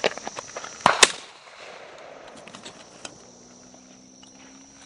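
Two shotgun shots fired a fraction of a second apart at thrown clay pigeons, about a second in, followed by a few small clicks.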